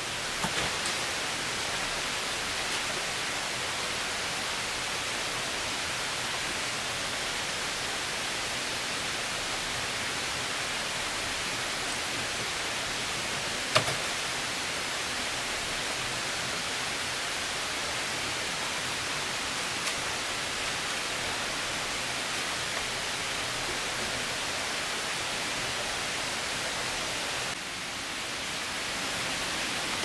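Steady hiss of falling water, with one sharp knock about 14 seconds in.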